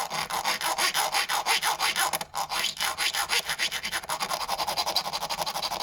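Hacksaw blade cutting a slot into the head of a rounded-off screw, rasping back and forth in quick, even strokes, with a brief break a little over two seconds in.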